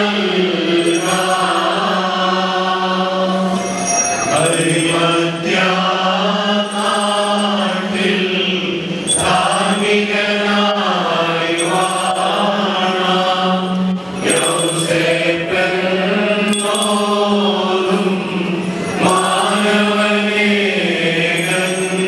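Church congregation singing a slow hymn together, in long phrases with held notes, with a woman's voice amplified through a microphone.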